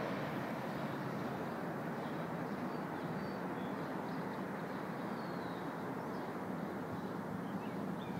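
Steady distant vehicle rumble, fading slightly, with a few short bird chirps over it.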